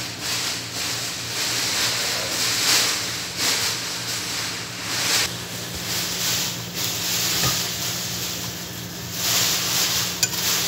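Tomato-based beef stew simmering in a stainless steel pot, a steady hissing bubble that swells and eases every second or two. Near the end, a couple of sharp clicks as chopped bottle gourd is spooned in.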